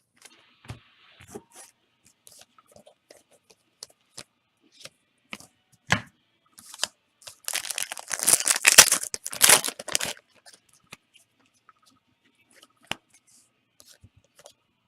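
A trading-card pack wrapper being torn open, a loud crinkly ripping for about three seconds starting some six seconds in, with small clicks and card-handling noises around it.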